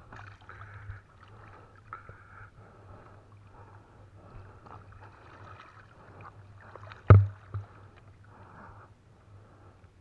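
Water sloshing and splashing in repeated surges as a trammel net with its floats is paid out by hand into a river current, over a low steady hum. About seven seconds in comes a sharp knock, the loudest sound, with a smaller one just after.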